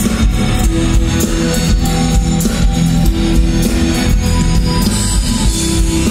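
Rock band playing live through a large outdoor PA, with electric guitars and a drum kit keeping a steady beat, recorded from within the crowd.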